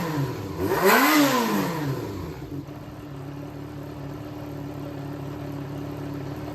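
Yamaha XJR400 air-cooled inline-four engine blipped once, its pitch rising and falling back, then settling to a steady idle. The seller describes it as running strong with no abnormal noise.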